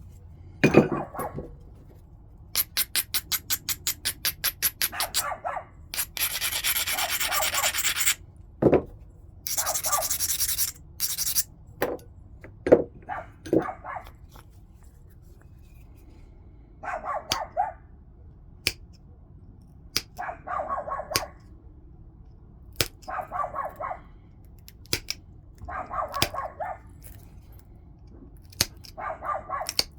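Flintknapping on a stone point: sharp clicks and taps as flakes come off, a fast run of ticks a few seconds in, and rasping strokes of stone being abraded. Shorter rubbing bursts return every few seconds in the second half.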